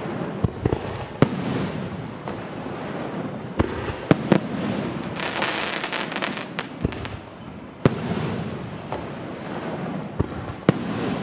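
Aerial firework shells bursting overhead in a series of sharp bangs, about ten in all, with a rolling rumble between them. Around the middle comes a stretch of dense crackling.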